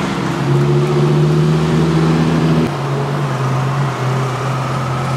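Twin-turbocharged Lamborghini Gallardo V10 running at low, steady revs as the car rolls slowly past. The note holds one pitch; about two and a half seconds in, the deepest rumble drops away and the note steps down a little.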